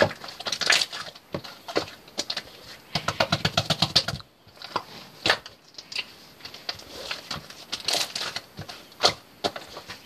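Hands squishing and pressing white slime, giving irregular sticky clicks and pops, with a fast run of crackling clicks about three seconds in.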